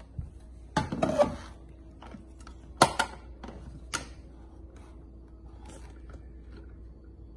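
Plastic clicks and knocks of a Ninja blender pitcher's locking lid being worked open by hand. There are two sharp clicks about a second apart near the middle, after a louder bump and rattle about a second in.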